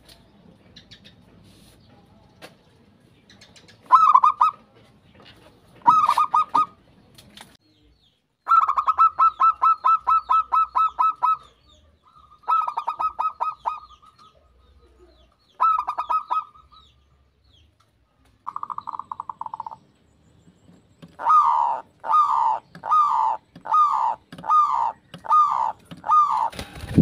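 Zebra doves cooing. The song comes in separate phrases of rapid, staccato notes, with one long rattling run a little before halfway. Near the end comes a series of about seven falling coos.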